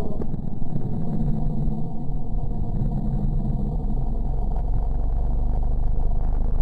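Steady, low rumbling drone, a space-sound track presented as the sound of the planet Mercury.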